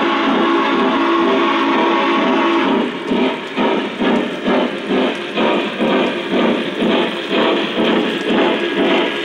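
Lionel Northern Pacific Challenger model steam locomotive's onboard sound system blowing a steam whistle chord, which cuts off about three seconds in, followed by rhythmic steam chuffing at about two to three chuffs a second as the locomotive rolls past.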